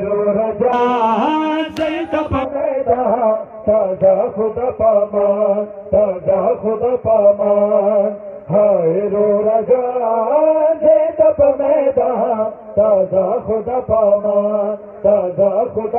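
Men chanting a noha, a Shia lament for Imam Hussain, in chorus through a public-address system, the melody rising and falling in long held phrases.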